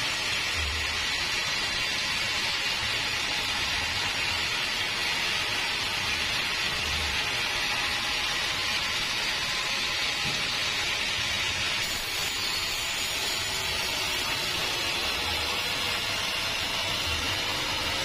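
Band sawmill blade cutting lengthwise through a large log: a steady hissing rasp, with an uneven low rumble underneath.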